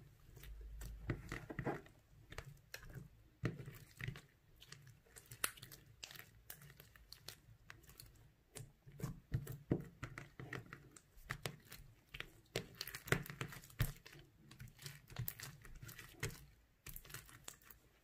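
Clear slime being stretched and pressed by hand, giving many irregular sticky crackles and small pops. The slime is partly melted and a little sticky.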